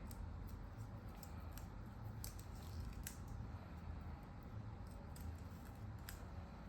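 Insulation tape being peeled and unwrapped from an airbag wiring harness: faint, irregular crackles and small clicks over a low steady hum.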